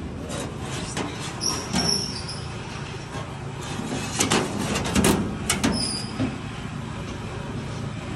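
Sheet metal being worked: several sharp metal clanks and a few short high squeaks over a steady shop rumble.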